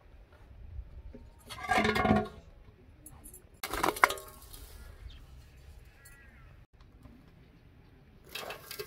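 Metal pot lid scraping and clinking against a large aluminium basin as ash is scooped and tipped in, in three short bouts. The second bout ends in a sharp, ringing clink.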